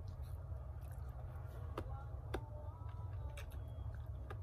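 Close-up eating sounds: a person chewing a mouthful of ramen, with a handful of scattered sharp clicks over a steady low hum.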